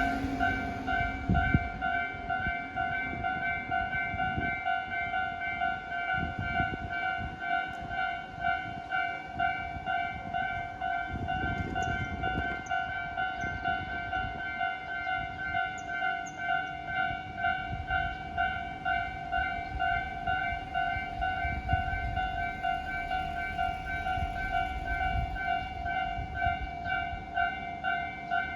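Japanese railway level-crossing warning bell ringing, an electronic alarm that pulses in an even ding-ding rhythm throughout, signalling that a train is approaching. A low rumble runs beneath it, heaviest about twelve seconds in.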